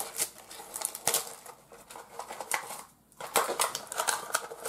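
Small cardboard-and-plastic trading-figure pack being opened by hand: irregular sharp clicks and crinkling, with a brief pause about three seconds in.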